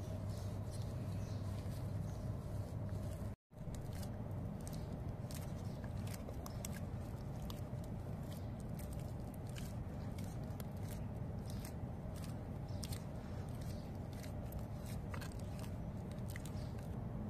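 Hands kneading a soft, sticky flour dough in a stainless steel bowl: irregular squelching and small wet clicks as the dough is pressed and folded, over a steady low hum. The sound drops out briefly a few seconds in.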